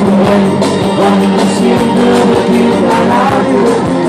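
Live pop music through a PA: a man singing into a microphone over a band with keyboard and a steady beat.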